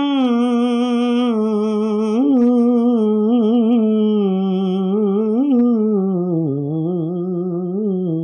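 A single voice singing an unaccompanied naat, holding one long ornamented phrase without words, with wavering vibrato and quick melodic turns, the pitch stepping gradually lower towards the end.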